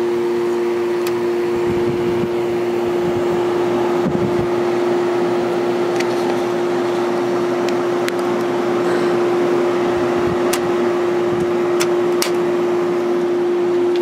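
Rotary compressor of a 1970s Whirlpool 6,000 BTU window air conditioner running on its own with the fan stalled, a steady loud hum with a few faint clicks. With no airflow over the condenser the pressure climbs and the compressor is working harder.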